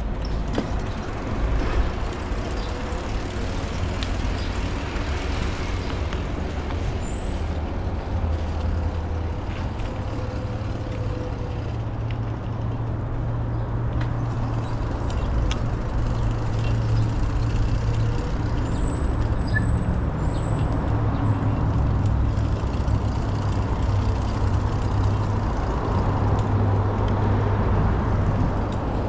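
Steady rumble of traffic on an elevated road overhead, swelling a little in the second half.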